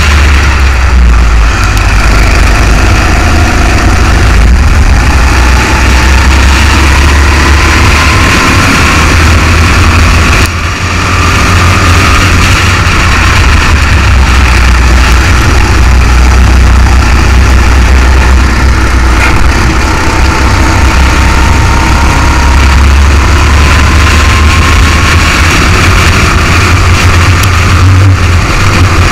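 A racing kart's engine running hard at close range, its whine climbing slowly in pitch along the straights, over a heavy low rumble. Its note drops briefly about ten seconds in as the throttle comes off, then picks up again.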